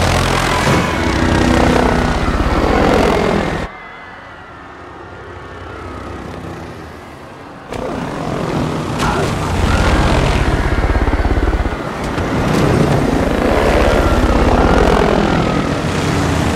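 MBB Bo 105 helicopter's rotor chop and engine, loud and fast, in a film sound mix. About three and a half seconds in it drops to a much quieter, muffled stretch, then returns loud about four seconds later, with a few sharp knocks among the chopping.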